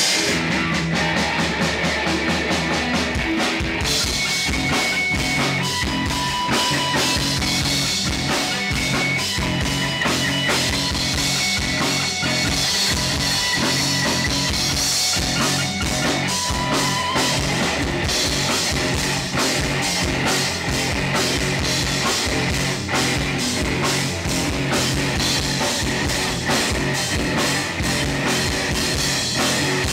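Rock band playing with distorted electric guitars, bass and drum kit. The full drum beat comes in about three seconds in and carries on to the end.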